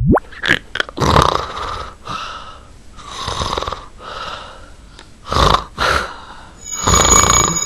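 A young man snoring loudly, putting the snores on, a rough snore or breath about once a second.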